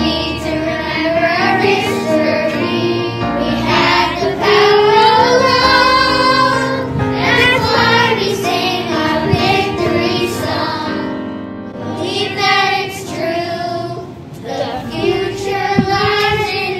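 Children singing a song in unison over an instrumental backing track.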